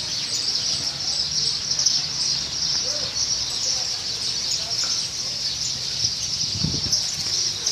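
Birds chirping and calling outdoors over a steady, dense high-pitched chorus. There is a brief low thump near the end.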